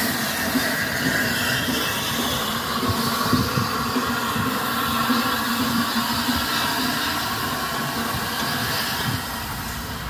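LNER A3 Pacific steam locomotive Flying Scotsman moving slowly, with a steady hiss of steam over a low, even hum.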